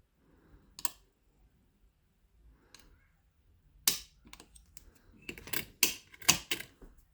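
Sharp metallic clicks of picking tools working the levers of a 7-lever safe lock as it is picked back to locked: a single click about a second in, another near four seconds, then a quick run of louder clicks near the end.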